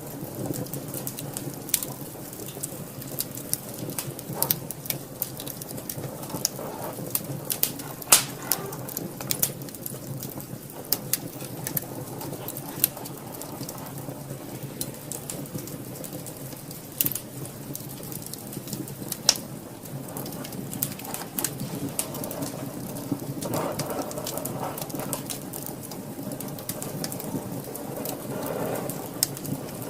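Wood fire burning in a fireplace, crackling with many irregular sharp pops over a steady low rush of flame; the loudest pop comes about eight seconds in.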